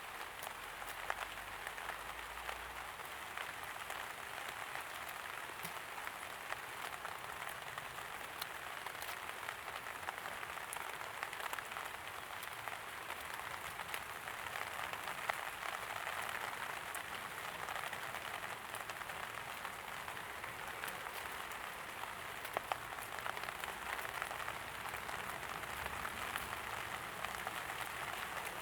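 Steady light rain pattering on hard surfaces, a dense hiss of many small drops with scattered sharper drip ticks.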